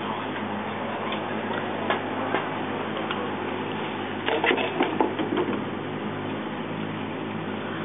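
A city bus's diesel engine idling at the stop with a steady low hum. About four to five seconds in there is a brief clatter of light knocks, as cans and bottles dropped from a bag hit the pavement.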